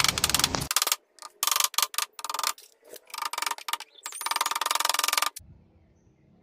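Hammer driving small nails through a plywood partition into a wooden frame, with quick runs of taps broken by short pauses. The hammering stops about five seconds in.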